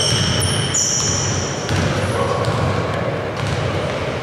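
Basketball dribbled on a wooden gym court, with sneakers squeaking sharply on the floor several times in the first second or two, all in a large echoing hall.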